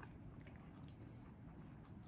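Faint chewing: a few soft mouth clicks, mostly near the start, over a low steady background hum.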